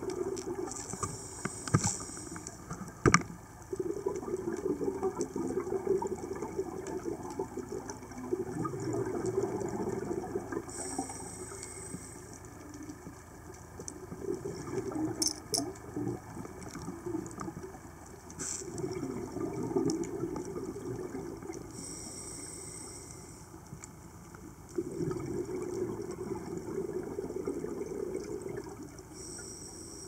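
Scuba diver breathing underwater through a regulator: a short hiss on each slow inhale, then a long gurgling rush of exhaust bubbles on the exhale, repeating several times. A few sharp clicks, the loudest a few seconds in.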